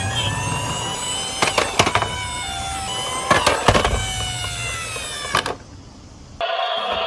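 A toy ambulance's electronic two-tone hi-lo siren alternating between two pitches, with a slowly rising whine under it and several sharp plastic clatters of toy cars running on the slope. The sound cuts off about five and a half seconds in, and music starts near the end.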